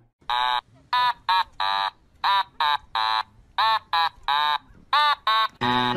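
Husky giving a quick run of short, high-pitched calls in little groups, each call rising and then falling in pitch.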